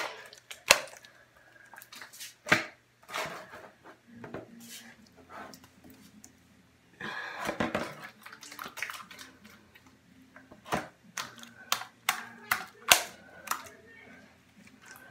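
Homemade slime being kneaded, stretched and pressed by hand, partly in a plastic bowl: irregular wet snaps and squelches, with a longer stretch of squishing a little past halfway.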